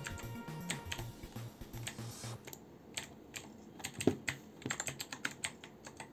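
Typing on an Altec Lansing ALGK8614 mechanical keyboard with red switches: quick, irregular keystrokes, with one sharper strike about four seconds in.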